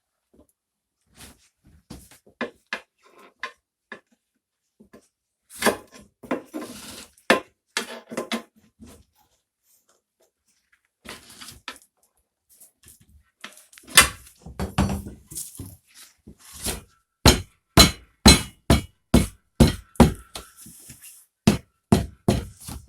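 A hammer tapping to work a tyre bead over a motorcycle wheel rim. Scattered clicks and clanks come first, then from a little past halfway a run of sharp knocks, roughly two a second.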